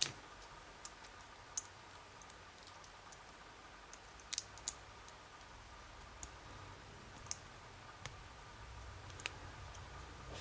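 Scattered light metallic clicks and taps, about a dozen at irregular intervals, from a pin-tumbler lock cylinder being handled with its key and a shim while it is taken apart.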